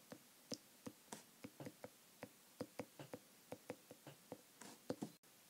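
Faint, irregular tapping and clicking of handwriting on an iPad touchscreen, roughly four light taps a second, as a word is written out.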